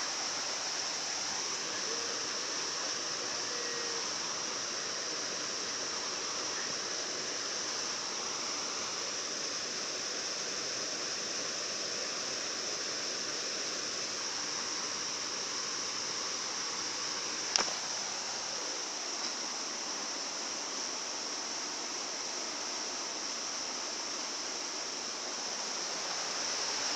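Waterfall: a steady rush of falling water. A single sharp click comes about two-thirds of the way through.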